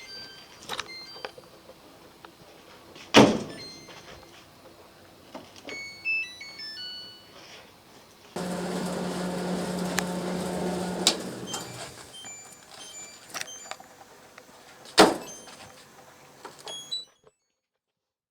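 Clothes dryer being handled and run: a couple of sharp knocks, a run of short high electronic beeps, and a steady machine hum that starts suddenly and lasts about three and a half seconds.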